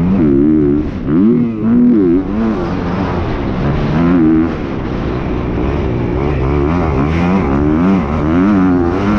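Motocross dirt bike engine under hard riding, revving up and falling back again and again as the throttle is opened and closed, the pitch rising and dropping every second or so.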